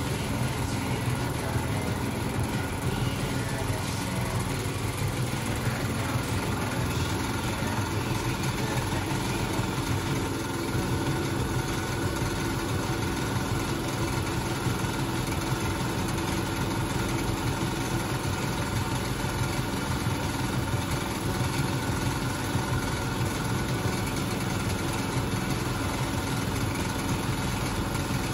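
1968 Cub Cadet 125 garden tractor's single-cylinder Kohler engine idling steadily while it warms up after a cold start.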